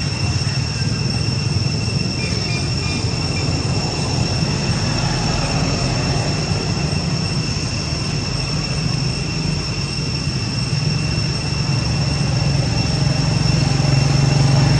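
Steady background drone: a low hum with a continuous high-pitched whine over a wash of noise, the low hum swelling near the end.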